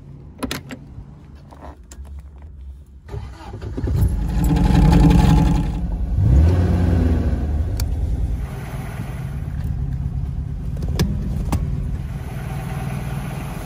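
A few clicks from the car door, then the 1973 MGB's four-cylinder engine starts about three seconds in, revs briefly, and settles into a steady idle.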